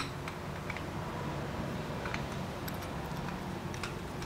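Scattered light metallic clicks and taps from a wrench and threaded rod ends being worked onto the pneumatic cylinder rods, over a steady low hum.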